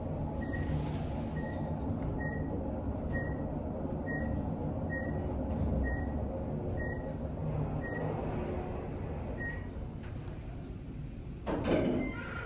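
Elevator car riding with a steady low hum and a short, high beep about once a second, the floor-passing signal; the beeps come further apart and stop as the car slows. A louder rushing sound near the end, the car arriving and its doors opening.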